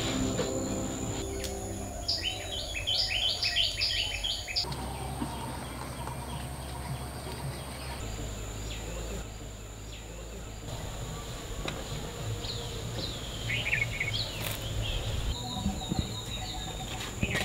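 Garden ambience: birds chirping in quick runs of calls, over a steady high-pitched insect drone and a low background hum. The background changes abruptly several times.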